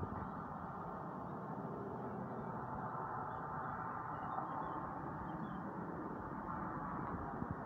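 Steady outdoor background noise, even throughout, with a few faint high chirps around the middle.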